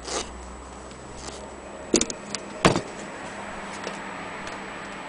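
A few sharp knocks and clicks of handling, with a double click about two seconds in and the loudest knock just after.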